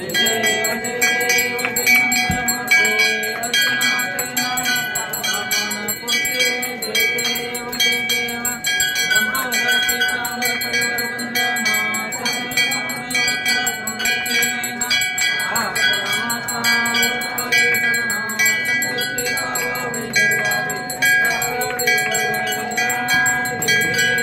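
Bells ringing rapidly and without a break through a Hindu aarti, with several sustained ringing tones overlapping, and voices singing the aarti beneath them.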